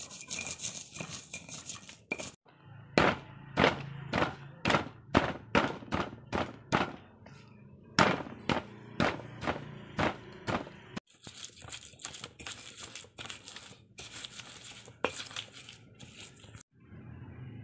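Stone pestle pounding and grinding peanuts in a stone mortar: sharp stone-on-stone knocks about two to three a second with gritty crushing between. Past the middle the knocks get lighter and more scattered as the peanuts turn to paste.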